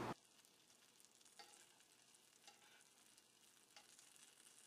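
Near silence: a faint sizzle of chicken frying in the pan cuts off abruptly just after the start, leaving only a few very faint ticks.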